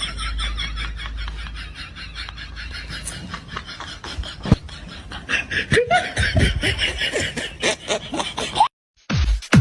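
High-pitched laughter in rapid, evenly repeated bursts that fade out over the first few seconds, followed by scattered snickering sounds. Near the end the sound cuts out briefly, then electronic dance music starts with a thumping beat.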